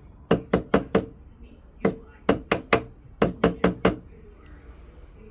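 Quick, light taps straightening the shank of an 18-karat gold ring against a flat surface. They come in short runs of about four taps, three runs with a single tap between them, and stop about four seconds in.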